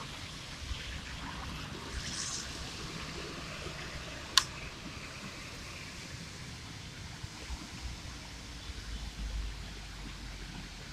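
Traffic passing on a rain-soaked road: tyres hissing through standing water as a bus goes by close at hand. A single sharp click about four seconds in is the loudest moment, and a low engine rumble swells near the end.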